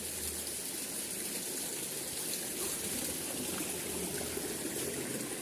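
Shallow stream flowing steadily, a continuous trickle of running water.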